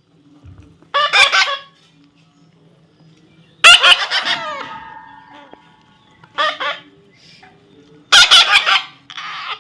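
Baby parrot squawking: a run of about five short, harsh, loud calls, a second or two apart.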